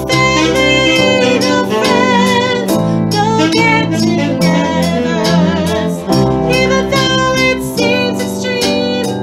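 A song: a singing voice with vibrato over plucked-string instrumental accompaniment, with steady chords changing every second or so.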